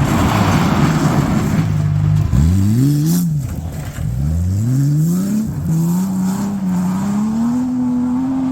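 Rally car engine on gravel, running hard under a hiss of loose gravel at first. It then revs up in two quick rising sweeps, each broken off by a gear change, and holds a steady, slowly rising pitch.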